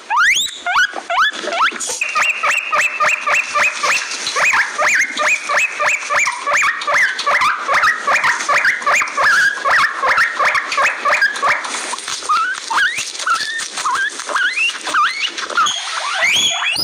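Guinea pig wheeking: a dense run of short, high, repeated squeaks, about three a second, with rising whistle-like squeals near the start and again near the end.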